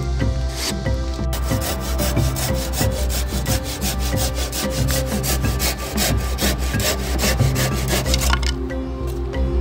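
Japanese-style pull saw cutting through a pressure-treated pine deck board in quick, even strokes, starting about a second in and stopping near the end, over background music.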